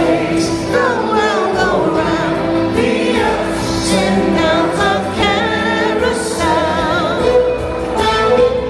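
A soul song with singing, the voices wavering with vibrato over sustained backing notes.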